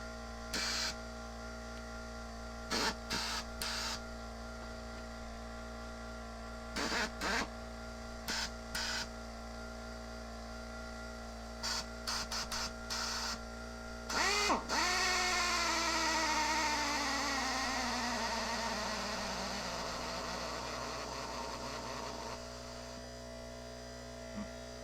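Rebuilt Snap-on PD R3 air drill's vane motor with new rotor blades, spinning up in several short trigger blips. About 14 seconds in it runs for some eight seconds, its whine sliding steadily down in pitch as it runs off a small air tank. A steady background hum runs underneath.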